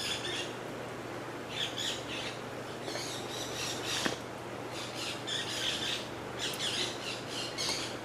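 Military macaw squawking: harsh, raspy calls in four short clusters. A single sharp click about four seconds in.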